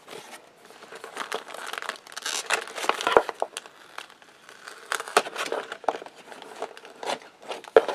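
Hands handling packaging in a cardboard shipping box, with irregular rustling, scraping and crinkling of paper and cardboard, busiest about two to three seconds in, and a sharper knock near the end.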